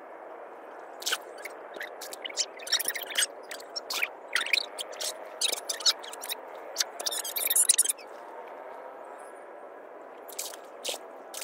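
Hands working in the shallow water and mud of a lotus pond, pulling up young lotus shoots: irregular wet squelches, splashes and crackles, densest about seven to eight seconds in, over a steady background hiss.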